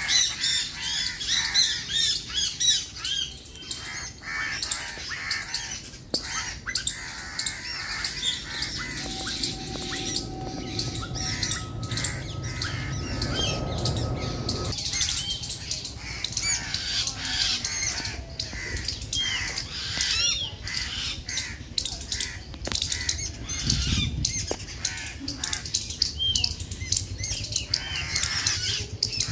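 Many birds chirping and squawking in rapid, overlapping calls. About halfway through, a low rumble with a steady held tone comes in for a few seconds, then stops.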